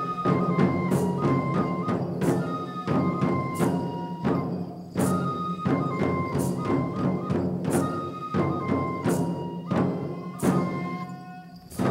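Kenbai festival accompaniment: a Japanese transverse flute plays a held melody over steady taiko drumming, punctuated by sharp, loud percussive strikes.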